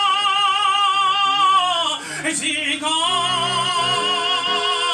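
A solo voice singing in an operatic style with strong vibrato. A long held note slides downward and breaks off about two seconds in, then after a short breath another held note begins.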